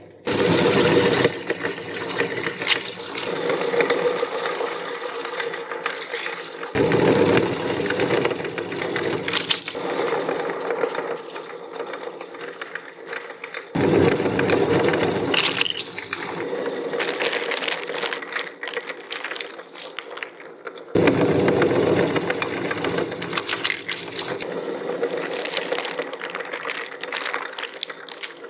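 Belt-driven electric meat grinder running while crackers are fed in, with a steady motor hum and crunching, crackling as they are ground to crumbs. The sound restarts abruptly with a louder burst about every seven seconds.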